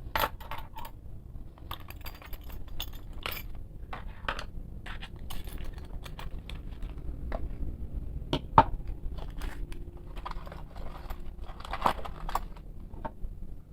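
Metal bike tools clinking and knocking as they are handled and set back into a tool case: a steady scatter of small clicks with a couple of louder knocks, one past the middle and one near the end.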